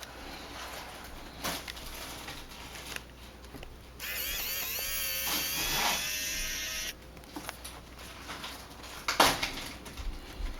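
A battery-powered precision screwdriver's small motor whines steadily for about three seconds, backing out a tiny Phillips screw. A few light clicks of handling come before and after it.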